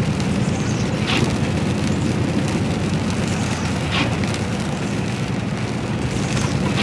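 Inside a lorry cab on a wet road: the HGV's diesel engine and tyres make a steady low drone, with a faint hiss of rain and spray. The windscreen wiper sweeps across twice, about a second in and again about four seconds in.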